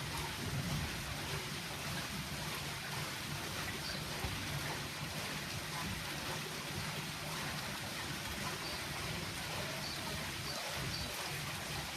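Brook water rushing steadily, an even hiss with a low rumble underneath.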